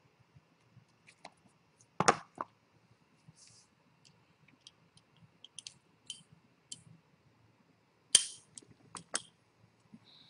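Scattered sharp clicks and knocks, a couple of louder knocks about two seconds in and just after eight seconds, with lighter ticks between.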